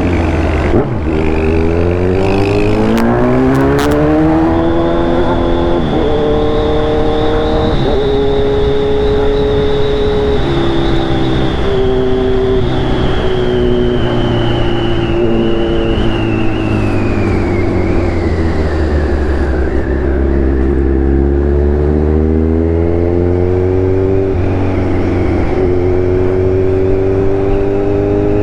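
Kawasaki Z1000 inline-four motorcycle engine running under way. Its pitch climbs over the first few seconds, holds with small steps between about 6 and 16 seconds, falls away to about 22 seconds, then climbs again near the end.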